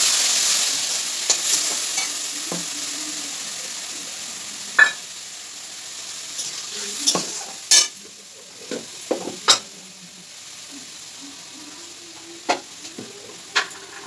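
Ground spice paste (ginger, cumin, chilli and tomato) sizzling loudly as it goes into hot oil with fried potatoes in a kadai, the hiss fading over several seconds. A spatula stirs it, knocking sharply against the pan now and then.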